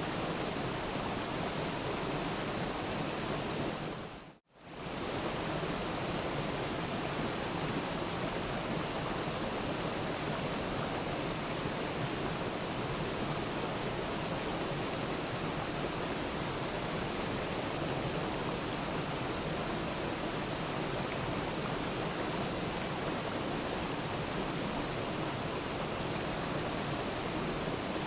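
Waterfall rushing: a steady, even noise spread across all pitches. About four seconds in it fades out to near silence for a moment and comes straight back.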